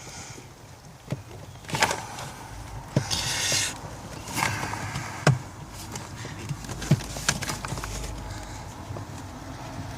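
Hands working plastic heater parts inside a car dashboard: scattered sharp clicks and knocks, with a short scraping rustle about three seconds in.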